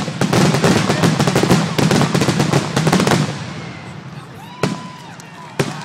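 Aerial fireworks finale: a dense barrage of rapid bangs and crackling that thins out about three seconds in, followed by two single late bangs.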